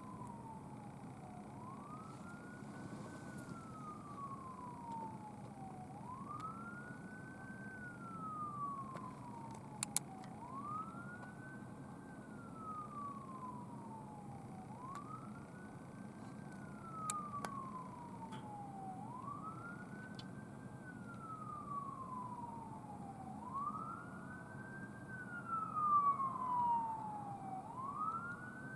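Ambulance siren in wail mode, each cycle sweeping quickly up in pitch and then sliding slowly down, about every four and a half seconds, growing louder toward the end as it approaches. A steady low hum runs underneath.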